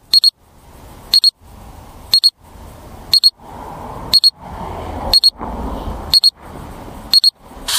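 High-pitched electronic double beep repeating about once a second from the landed FPV quadcopter, with a rushing hiss rising between the beeps.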